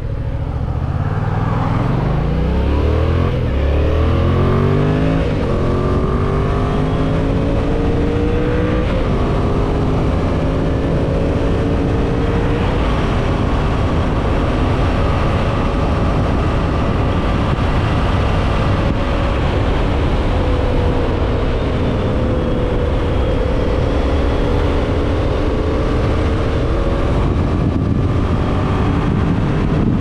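Yamaha MT-07's 689 cc parallel-twin engine accelerating hard through the gears, its pitch rising and dropping back with each of several upshifts over the first nine seconds or so. After that it holds a steady cruise with only slight rises and falls in pitch.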